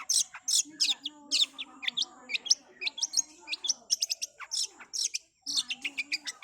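Long-tailed shrike (cendet) singing a fast run of sharp, rapid chirping notes, several a second, with a short break about five seconds in. A softer, low wavering sound runs beneath the notes.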